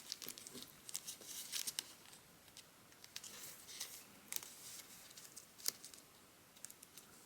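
Origami paper crinkling faintly as it is squeezed and creased by hand: scattered short crackles, busiest in the first couple of seconds, then only now and then.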